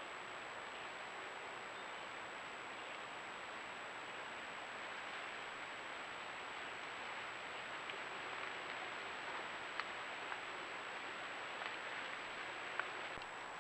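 Steady hiss of a trail camera's microphone with a thin, constant high-pitched electronic whine, and a handful of faint ticks or snaps in the second half.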